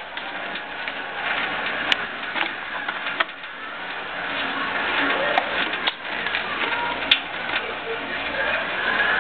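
Thin stream of water from a kitchen faucet running into a stainless steel sink, with quick, irregular clicking and ticking as a cat wearing a plastic cone collar laps at the stream.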